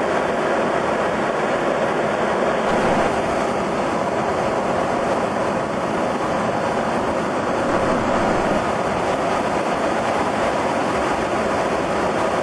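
Steady roar inside the main cargo deck of a freighter aircraft in flight: engine and airflow noise, unchanging throughout.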